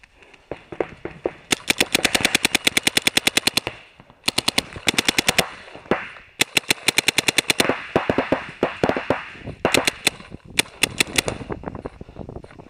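Planet Eclipse Ego LV1 paintball marker firing in rapid strings of about ten shots a second, five bursts with the longest lasting about two seconds. Fainter shots from other markers fill the gaps.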